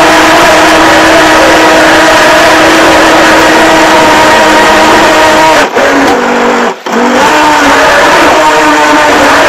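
Radio-controlled boat's motor running loud and steady, its pitch holding level; a little past halfway the sound drops out briefly twice, then picks back up with the pitch wavering.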